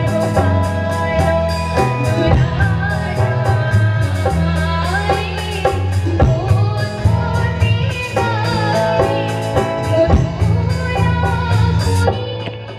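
A woman singing a melody into a microphone through a stage sound system, accompanied by guitar and drums. The drum ticking drops out near the end.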